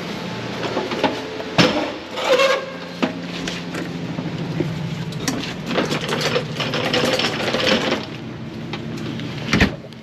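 A truck engine idling with a steady hum that fades out about eight seconds in. Over it come clanks and rattles of equipment being handled, with a sharp knock near the end.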